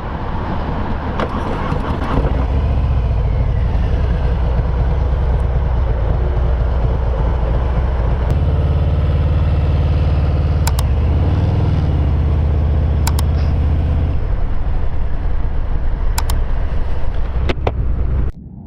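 Harley-Davidson Fat Bob 114's Milwaukee-Eight V-twin, fitted with Rinehart slip-on exhausts, running loud and steady as the bike rides off. The engine note changes about a third of the way through and again about three-quarters through. The sound cuts off suddenly just before the end.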